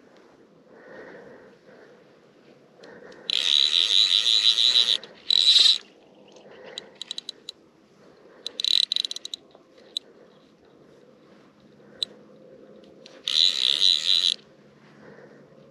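Fly reel's click-and-pawl ratcheting in four bursts of rapid clicks, each about a second long, as line is reeled in on a hooked trout, with a few single clicks between the bursts.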